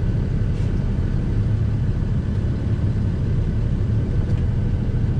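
Air-brake truck's engine running with a steady low rumble, heard inside the cab, as the truck creeps forward at about 5 mph for a service brake test.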